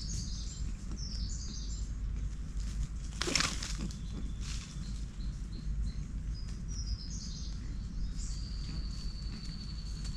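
Forest ambience with birds calling in short high chirps, and a thin steady whistle held for about a second and a half near the end, over a constant low rumble. A brief loud swish comes about three seconds in.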